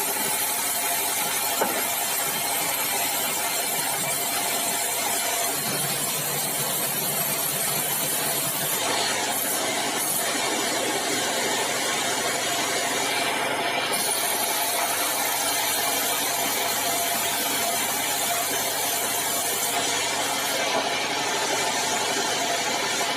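Sawmill band saw machinery running steadily: a continuous mechanical drone with a steady hum, no pauses.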